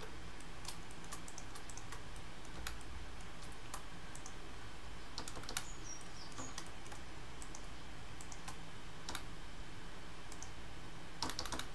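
Computer keyboard keys and mouse buttons clicking sparsely, single clicks every second or so with a quick run of clicks near the end, over a steady low hum.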